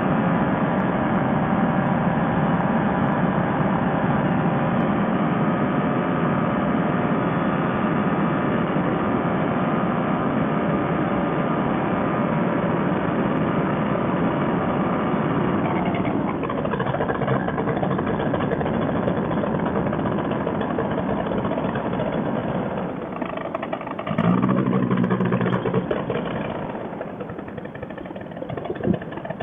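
Fresh Breeze Monster paramotor engine running steadily in flight, then about halfway through its even tone fades into mostly wind rush, with a brief low drone returning about three-quarters of the way in. This is the engine losing power: it later proved to have no spark from a failed stator and coil.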